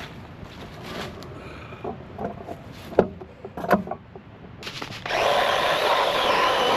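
A few scattered knocks and clatters, then about five seconds in an electric chainsaw starts and runs steadily and loudly.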